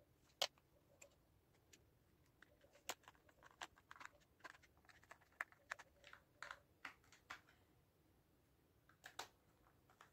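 Faint, irregular small clicks and light taps, most of them in the middle, from the buttons of a small plastic wireless speaker being pressed and its casing handled while the repaired button is tested.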